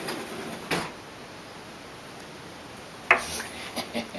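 Kitchen things clinking and knocking as they are rummaged out of a lower kitchen cabinet: one short clatter under a second in, then a run of sharp knocks and clinks from about three seconds in.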